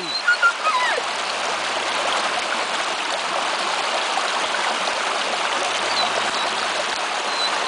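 Small stream cascading over rocks: a steady, even rush of water.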